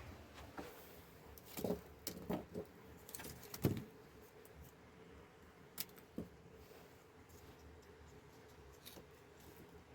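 Scattered light knocks and clicks, several in quick succession in the first four seconds and a couple more a little later, over a faint steady background.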